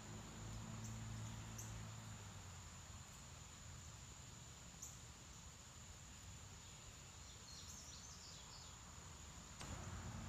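Faint background noise with a steady high-pitched whine throughout, a low hum in the first couple of seconds and again near the end, and a few faint high chirps a little before the end.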